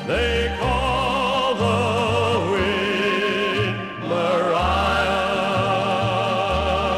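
Background orchestral song music: long held notes with vibrato over a bass line that steps from note to note.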